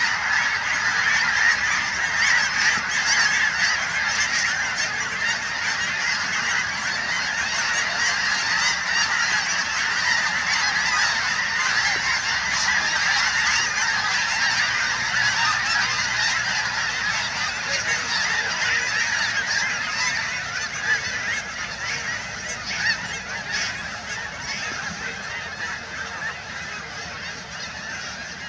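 A huge flock of snow geese calling all at once as they fly, a dense, unbroken din of overlapping honks that grows fainter over the last several seconds.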